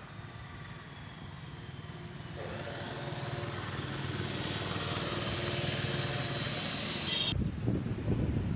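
Bajaj Caliber motorcycle's single-cylinder four-stroke engine running, growing louder from about two seconds in, then cut off abruptly near the end and replaced by wind buffeting the microphone.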